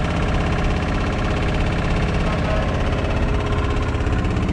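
Heavy diesel truck engine idling steadily with an even low rhythmic pulse.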